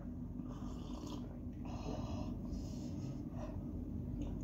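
Two people sipping milk tea from mugs, with soft slurps and noisy breathing through the nose. The clearest sips come about half a second in and about two seconds in.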